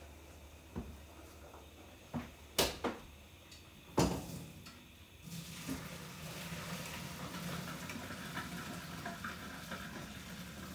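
A few metal knocks and clanks of pots, the loudest about four seconds in, then a steady rush of water into the sink as the cooked pasta is drained.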